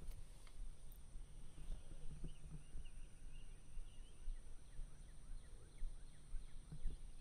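Faint outdoor ambience: scattered small bird chirps and calls over a low steady rumble.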